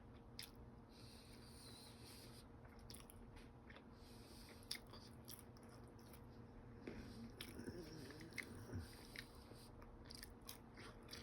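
Faint chewing and wet mouth clicks of a person eating, close to the microphone.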